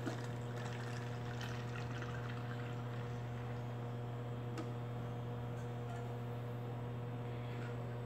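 Soapy liquid poured through a plastic funnel into a jar, filling it, over a steady electrical hum.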